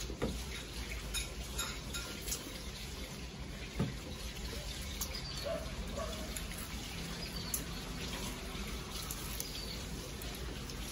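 Soup being ladled from a metal wok into a bowl: liquid pouring and dripping, with a few light clinks of the ladle and spoons against the dishes.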